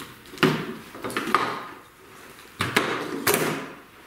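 Engine wiring harness being handled and laid out on a car's sheet-metal panel: cable and plastic connectors clattering and rustling against the metal. The handling comes in three sudden clattering rustles, one about half a second in and two close together near three seconds.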